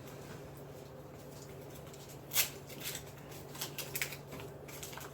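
Small handling and eating noises of chocolate bars: a few faint clicks and rustles, with one sharper click about two and a half seconds in. A steady low hum runs underneath.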